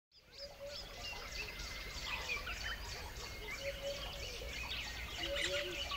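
Many small birds chirping at once: a dense chorus of overlapping high chirps, with runs of lower, quickly repeated calls that grow more frequent near the end.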